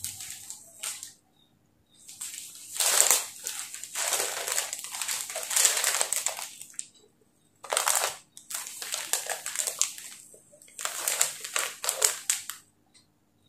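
Saree fabric rustling and crinkling as it is handled and opened out, in about four spells with short quiet gaps between them.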